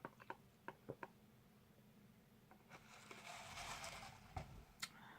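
Faint close-up eating sounds: soft wet mouth clicks from chewing a sauce-soaked sandwich, several in the first second and two more near the end, with a brief soft rustle about three seconds in.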